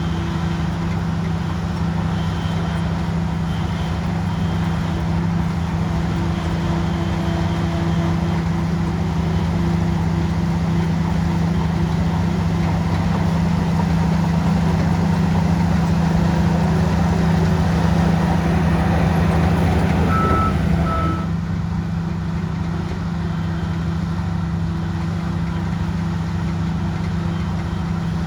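A bulldozer's heavy diesel engine runs steadily with a strong low hum. About twenty seconds in, two short beeps of a reversing alarm sound and the engine eases off slightly.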